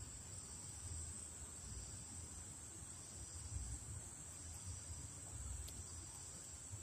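A steady, high-pitched insect drone that runs on without a break, over a low, uneven rumble.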